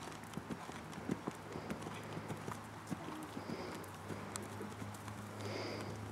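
Hoofbeats of a ridden horse moving at trot and canter on a sand arena, a run of irregular dull strikes over a steady low hum.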